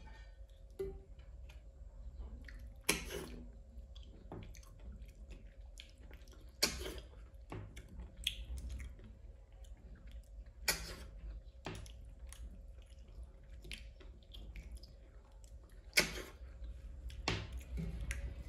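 Close-miked eating: a person chewing a mouthful of rice, with soft wet squishing and a sharp mouth smack or click every few seconds. A steady faint hum runs underneath.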